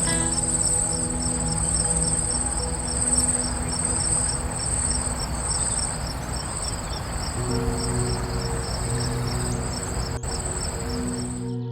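Insect, cricket-like, trilling with a high, continuous shrill that pulses about four times a second, cutting off just before the end.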